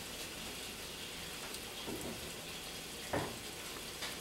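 Whole-milk béchamel sauce simmering in an enamelled pot: a faint, steady bubbling hiss. A brief soft knock about three seconds in.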